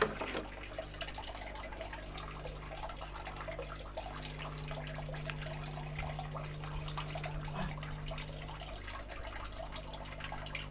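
Water trickling and dripping steadily, with many small drips, over a steady low hum.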